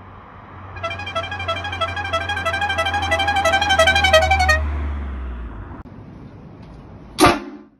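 Musical car horn playing a quick tune of short, rapidly changing notes for about four seconds as a car drives past, its engine humming low underneath. Near the end a brief, loud horn blast cuts off abruptly.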